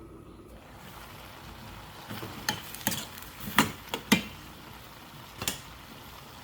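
A utensil stirring in a cooking pot over a steady sizzle or simmer, with several sharp clanks against the pot. The two loudest clanks come about three and a half and four seconds in.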